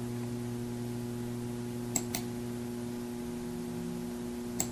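Steady electrical mains hum, with two quick pairs of sharp computer mouse clicks, about two seconds in and again near the end, as points are picked on screen.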